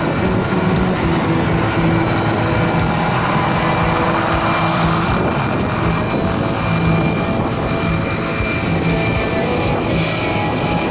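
Radio-controlled scale model of a Chinook tandem-rotor helicopter hovering low and settling onto grass, its two rotors and motor running steadily with a held whine.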